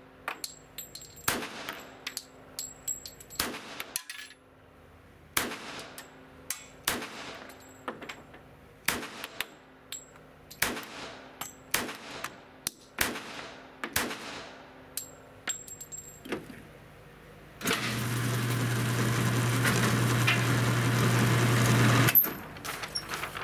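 CZ 97 B .45 ACP pistol fired in a steady string of about fifteen shots, each followed by echo from the indoor range. Then an electric target carrier runs with a steady hum for about four seconds before stopping.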